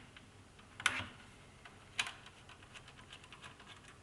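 Small plastic clicks and knocks as a screwdriver works at stuck screws in a thin client's plastic case: two sharper knocks about a second and two seconds in, with lighter ticks around them.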